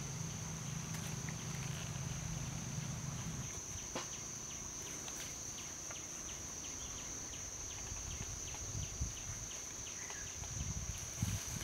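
Steady high-pitched drone of insects, with faint ticks and rustles of hand work on a stone-tipped bamboo spear and a couple of soft thumps near the end.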